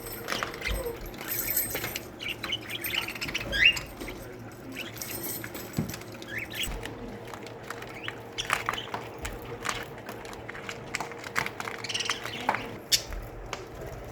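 A colony of budgerigars chattering: many short chirps and squawks overlapping, with a few sharper calls.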